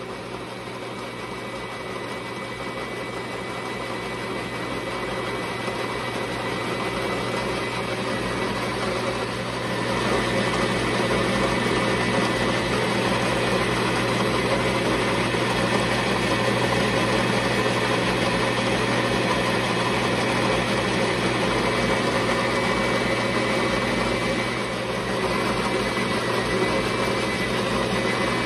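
Metal lathe running, its motor and gearing humming steadily while a lathe tool takes a roughing cut on round metal bar stock, with the rough hiss of the cut over the hum. The sound grows louder over the first ten seconds or so, then holds steady.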